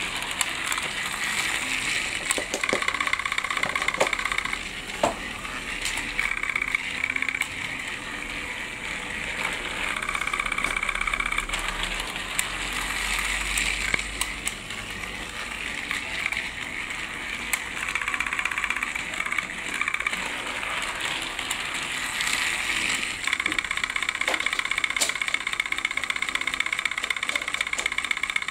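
Battery-powered motor of a Fisher-Price Trackmaster Hurricane toy engine whirring as it pulls a wagon along plastic track, with occasional clicks from the wheels and track. The whirr grows louder and steadier about two-thirds of the way through.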